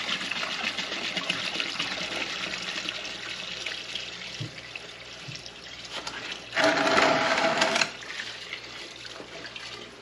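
Water running at a sink as the ATV's removed fuel tank is filled, a steady rush that eases off. About two-thirds of the way in comes a louder gush lasting about a second.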